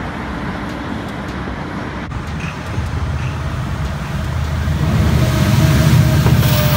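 Low rumble of an approaching GO Transit commuter train, growing steadily louder from about three seconds in over a background of road-traffic noise.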